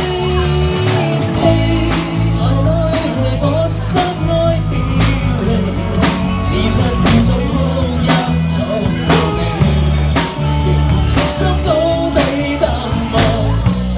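A live band playing a pop ballad: drum kit keeping a steady beat under bass and guitar.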